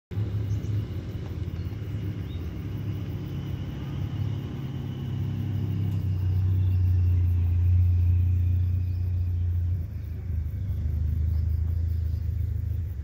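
Low, steady engine rumble that swells in the middle and eases off about ten seconds in.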